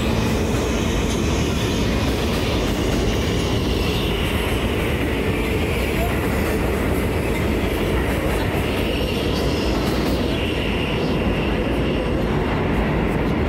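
New York City subway train running on the track: a steady rumble of steel wheels on rail, with a faint high wheel squeal.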